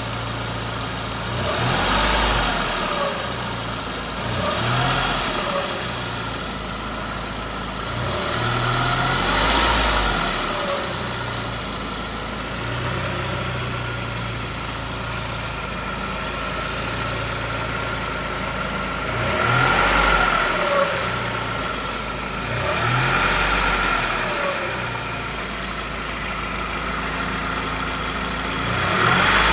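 Saab engine idling and being blipped about six times. With each blip a whine rises and falls in pitch with engine speed, the sign of a failing alternator rather than the turbo.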